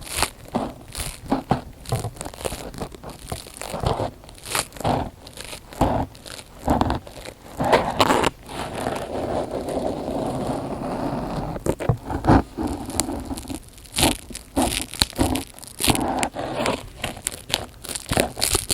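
Close-miked ASMR trigger sounds: irregular crinkling and crackling with many sharp clicks. It thickens into a denser, continuous rustle about halfway through.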